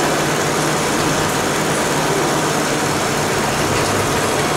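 Mercedes-Benz 208 D van's diesel engine running steadily with a low, even hum.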